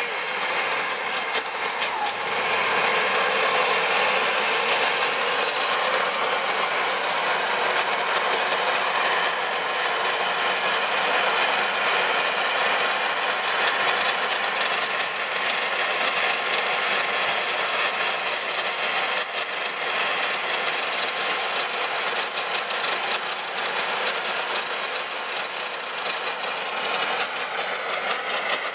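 Homemade jet engine running loudly and steadily, a full rushing roar topped by a high, piercing whine. The whine dips in pitch about two seconds in and climbs back up over the following few seconds, then holds steady.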